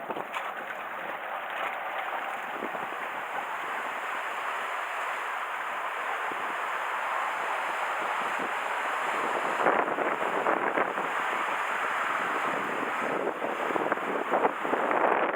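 Strong wind buffeting the microphone over a steady wash of surf, growing louder with gusts in the second half.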